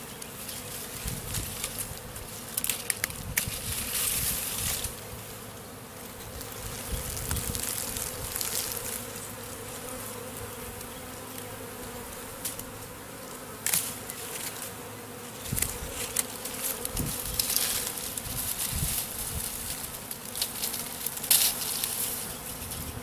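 Honeybee swarm humming steadily. Irregular scrapes, rustles and knocks come and go, from digging and cutting at the bush the swarm is clustered on.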